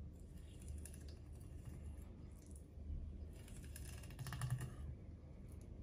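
Faint scraping and small clicks of a chef's knife slicing through a mackerel fillet along the line of pin bones, the blade touching the cutting board, with a denser run of clicks about four seconds in.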